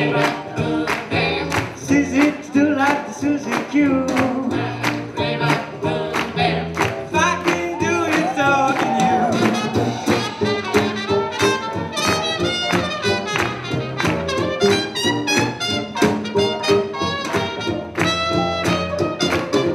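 Live swing jazz band playing up-tempo with a steady, even beat.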